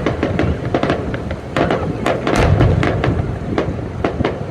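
Fireworks going off in rapid succession: many sharp cracks and pops over a continuous deep rumble of bursting shells, heaviest around the middle.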